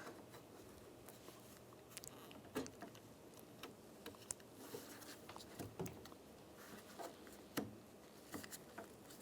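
Faint, scattered clicks and taps of plastic parts being handled as an interior door handle and its latch cables are slid into position, with a few sharper ticks along the way.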